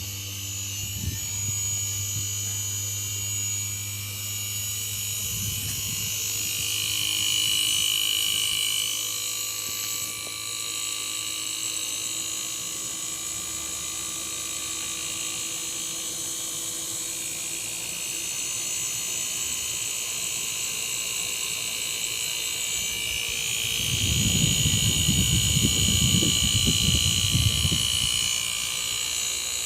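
Panasonic split inverter air conditioner running on test: a steady compressor and fan-motor hum with a high electronic whine that swells and fades. A louder rough, rumbling noise comes in for a few seconds near the end. The compressor keeps running rather than cutting out after a second, a sign that the repair of the outdoor board has fixed the fault.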